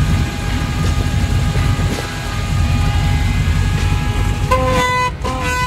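A Jeep CJ-7's 350 cubic-inch V8 with a MotherThumper cam running at idle with a low rumble. Its horn sounds two short beeps near the end.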